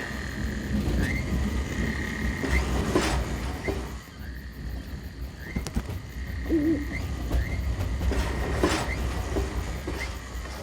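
Cartoon train sound effects: a steady low rumble of a rail vehicle with a thin high squeak that chirps upward every second or so, and scattered knocks.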